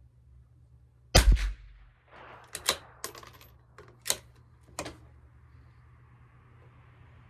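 A single shot from a CZ 457 LRP .22 LR bolt-action rifle about a second in. It is followed by a few sharp metallic clicks over the next few seconds as the bolt is worked to eject the case and chamber the next round.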